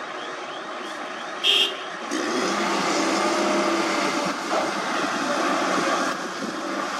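Komatsu hydraulic excavator's diesel engine working while loading a dump truck, growing louder about two seconds in as the engine takes on load. A brief high-pitched beep sounds about a second and a half in.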